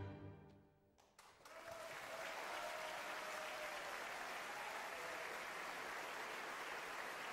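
The last orchestral note of an opera aria fades out, then after a brief hush the audience starts applauding about a second in, and the clapping holds steady.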